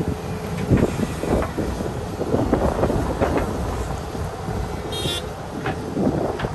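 Volvo excavator's diesel engine working steadily, with repeated knocks and clunks of the machine at work. A brief high-pitched toot comes about five seconds in.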